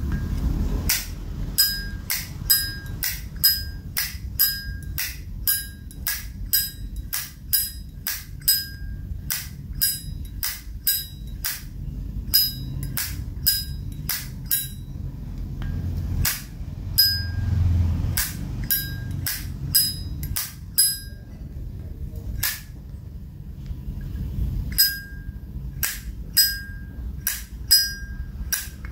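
Zippo lighter lid flicked open and snapped shut over and over, each stroke a sharp metallic click with a short bright ring, about two a second, with a few brief pauses.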